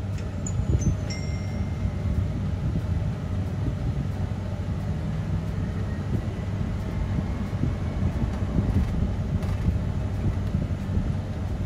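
Steady low rumble of road and engine noise heard from inside a moving car. A few brief high tones come in about a second in.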